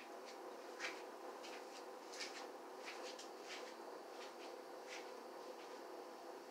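Faint indoor room sound: a steady low hum with scattered light clicks and ticks at irregular intervals.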